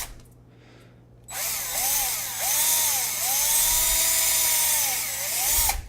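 Handheld power drill boring into an iPhone 7's casing, starting about a second in with a harsh grinding hiss. The motor whine rises and falls with several squeezes of the trigger, one longer steady run in the middle, and stops just before the end.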